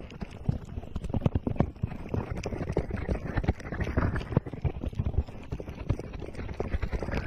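Fingertips tapping and rubbing on the silicone ears of a binaural microphone: a quick, irregular run of deep, muffled thumps, several a second.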